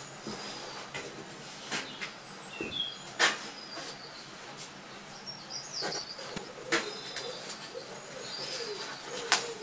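Several sharp knocks and clatters from rummaging through parts in search of a bolt, the loudest about three seconds in and near the end. Between them a pigeon coos repeatedly in the second half, and small birds chirp.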